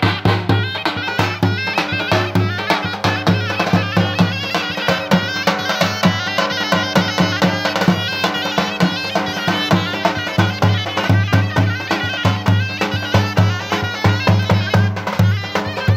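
Live Macedonian folk dance music: a tapan, the large double-headed bass drum, beaten with a stick in a steady driving beat, under a reed wind instrument playing a fast, heavily ornamented melody.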